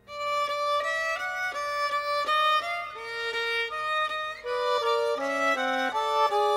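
Background music: a lively melody of short, separate notes, several to the second.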